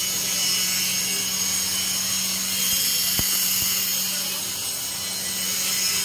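Crowded market street ambience: a steady low hum under an even hiss, with faint murmur of distant voices. A single sharp click about three seconds in.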